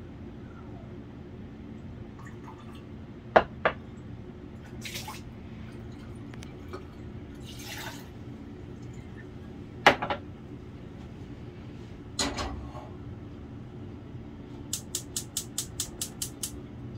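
Water splashing as it is poured from a glass measuring cup into a pot, with a few sharp clinks of glass and metal. Near the end a gas range's spark igniter clicks about ten times in quick succession, about five a second, as a burner is lit.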